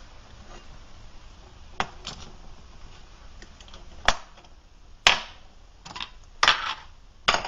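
Metal clanks and knocks as a canteen cup and a steel GrillTop stove stand are lifted off a Trangia alcohol burner and set down: about seven sharp knocks at uneven intervals, several ringing briefly, the loudest about four and five seconds in and near the end.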